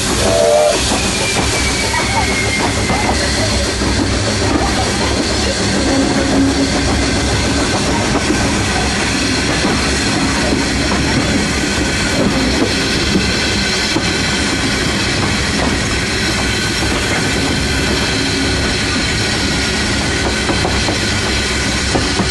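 Steam locomotive running along the track, heard from its cab: a steady, loud mix of mechanical rattle and wheel noise on the rails.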